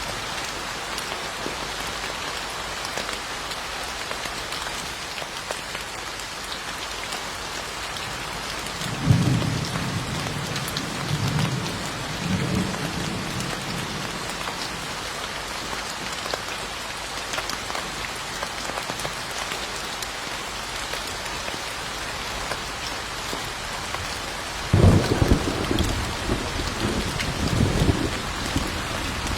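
Steady rain falling, with two rolls of thunder: one starting suddenly about nine seconds in and rumbling for several seconds, and a louder one near the end.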